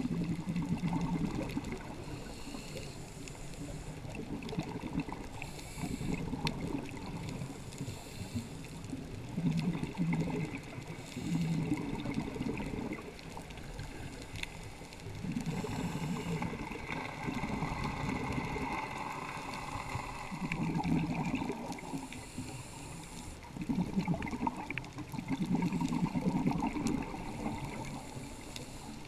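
Scuba diver breathing through a regulator underwater: a burst of exhaled bubbles every four to five seconds, each lasting a second or two, over a steady watery background.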